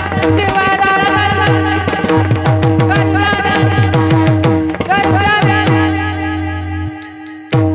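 Devotional kirtan music: a voice singing a melodic line over hand-drum strokes with gliding bass notes and a steady held drone. The music cuts out abruptly for about half a second near the end, then comes back.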